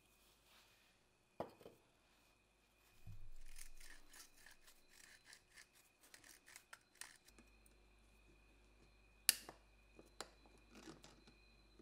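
Quiet hand work on small parts: a few sharp clicks and taps, and a few seconds of quick, short scratchy rubbing strokes in the middle.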